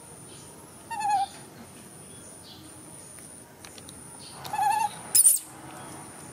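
Baby macaque giving two short, wavering, whimpering coo calls, one about a second in and one about four and a half seconds in. A brief, loud, sharp sound follows just after the second call.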